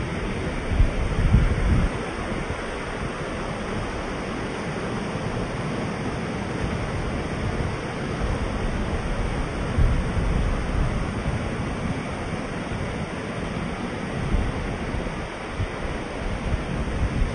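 Water pouring over a dam and rushing down the river below: a loud, steady rush, with a few stronger low rumbles about a second in and again near ten seconds.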